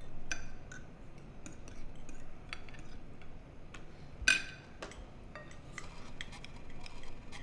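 Cutlery clinking against dinner plates: a scatter of small clinks with a short ring, one clearly louder clink a little past four seconds in.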